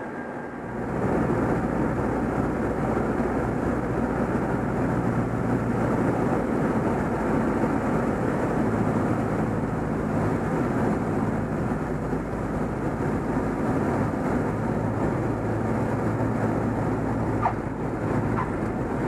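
Super Decathlon's four-cylinder piston engine and propeller running steadily under a heavy rush of air noise, getting louder about a second in.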